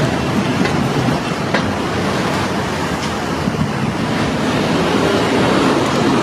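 A large vehicle passing close by: a steady heavy rumble with a few sharp clicks.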